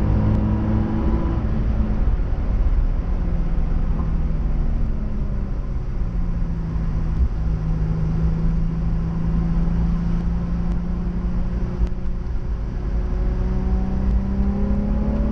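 Nissan 350Z's V6 engine being driven hard on track. Its pitch drops over the first few seconds, holds steady through the middle, and rises again near the end as it accelerates, over a constant low rumble.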